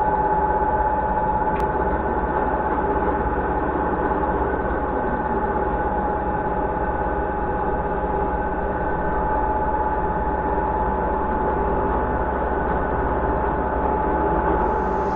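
Metal-turning lathe running steadily: a constant mechanical drone with a steady whine over it.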